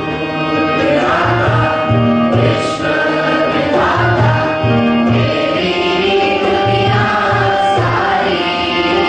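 Morning prayer sung by a group of voices, coming in about a second in, over held keyboard chords and a steady hand-drum beat.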